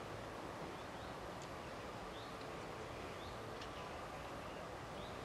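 Steady outdoor background noise with faint, short bird chirps about once a second and a couple of sharp higher chirps.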